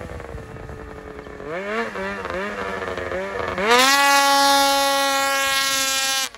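Ski-Doo 600RS race snowmobile's two-stroke engine: a few short throttle blips rise and fall, then about three and a half seconds in it is opened wide and held at high revs, loud and steady, until it cuts off abruptly near the end.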